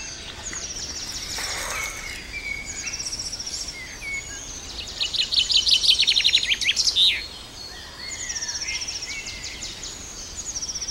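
Wild birds singing: several short, high trilled phrases, with a louder, faster trill midway through.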